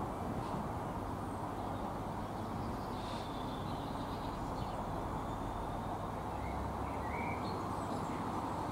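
Class 66 diesel-electric locomotive approaching under power, its two-stroke EMD V12 engine giving a steady low rumble. Birds chirp faintly over it about three seconds in and again near the end.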